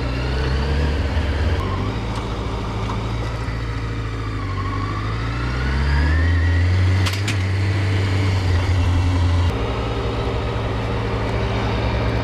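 Honda CBR600F4i inline-four engine pulling the bike along at moderate revs, rising in pitch as it accelerates, then holding steady. It runs without stumbling on this low-rev stretch.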